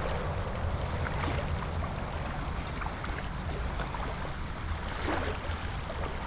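Shallow water sloshing and lapping as someone wades through it, over a steady low rumble.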